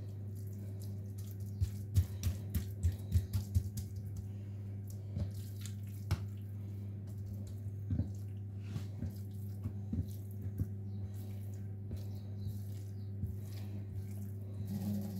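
Hands working a börek: spreading filling over thin dough sheets and rolling them up, making soft rustles and light crackling taps, most in a cluster about two seconds in. A steady low hum runs underneath.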